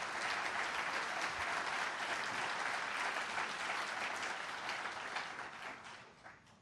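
An audience applauding, the clapping dying away near the end.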